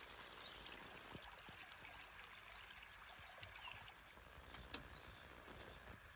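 Near silence: faint outdoor hiss, with a few faint high chirps and a couple of soft clicks.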